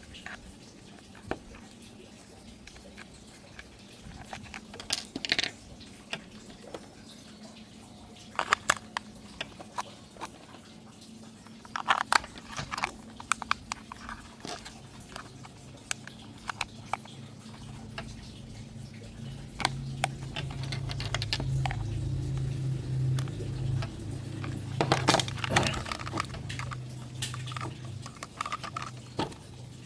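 Scattered clicks and knocks of objects being handled, then a steady low hum that starts about two-thirds of the way in and carries on.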